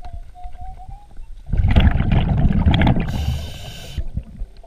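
Scuba diver breathing through a regulator underwater: a loud rush of exhaled bubbles about a second and a half in, followed by a short hiss of inhalation.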